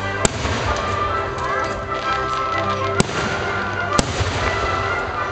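Aerial firework shells bursting with three sharp bangs, one just after the start, one about three seconds in and one a second later, over music playing throughout.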